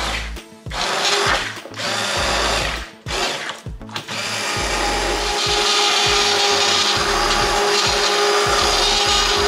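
Immersion blender puréeing chunky cooked broccoli soup in a pot. It gives several short pulses over the first few seconds, then runs continuously with a steady motor whine from about four seconds in.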